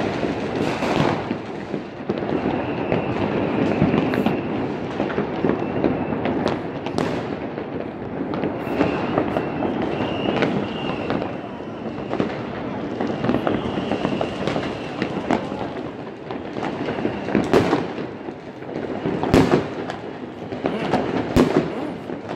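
New Year's fireworks and firecrackers going off all over a city at once: a continuous crackling din of many distant bangs and pops. A few louder, sharper bangs stand out near the end.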